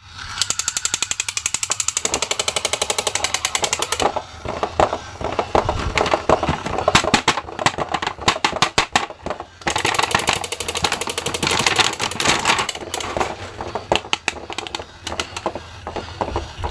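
Battery-operated crawling-soldier action figure with a rifle clicking rapidly and evenly as its motor mechanism runs; in the middle, an irregular crackle of the plastic blister pack being handled, then the rapid clicking again.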